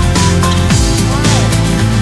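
Background music with a steady drum beat and a heavy bass line.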